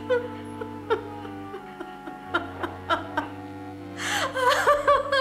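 Slow score music, a melody of single notes. About four seconds in, a woman breaks into loud, wavering sobs.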